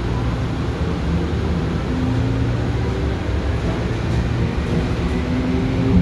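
Mumbai Monorail train running, a steady low rumble with a shifting hum.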